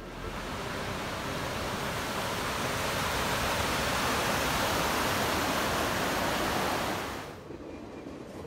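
Mountain creek in spate, whitewater rushing over rocks and logjams: a steady, dense rush of water that fades out about seven seconds in.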